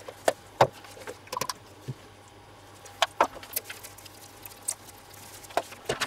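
Spice shaker shaken and tapped over a cast-iron Dutch oven of stew, seasoning falling in: scattered light clicks and taps, a few a second at most, over a faint steady hum.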